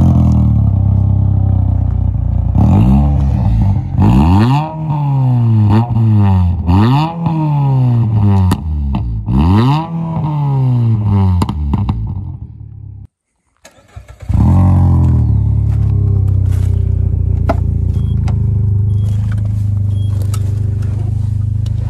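Peugeot 206 GTI 180's 2.0-litre four-cylinder engine, its exhaust missing the rear silencer, idling and then blipped over and over, the revs rising and falling about once a second. After a brief gap it idles steadily again.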